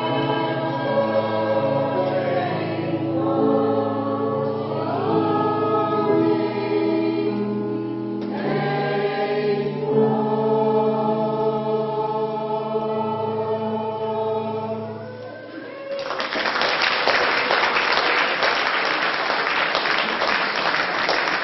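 Polyphonic choir singing a Christmas piece in held, multi-part chords that end about three quarters of the way in, followed by an audience applauding.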